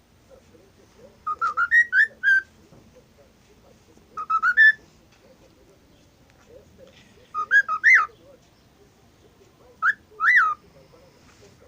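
Cockatiel whistling: four short phrases of quick rising whistled notes, a few seconds apart.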